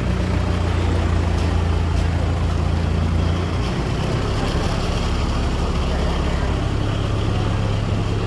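Mitsubishi bus's diesel engine running steadily with a low hum, its note shifting about three and a half seconds in and rising slightly near the end.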